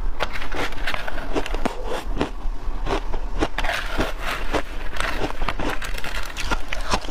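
Shaved ice dusted with matcha powder being chewed close to a clip-on microphone: a fast, irregular run of crisp crunches and crackles.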